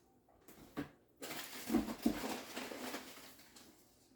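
Rustling and crinkling of packing as glass dishes are handled and lifted out of a box, with a couple of light clinks about half a second in and low knocks in the middle.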